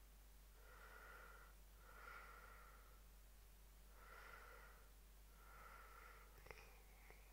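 Near silence, with four faint breaths close to the microphone, about one every one and a half seconds, and two faint clicks near the end.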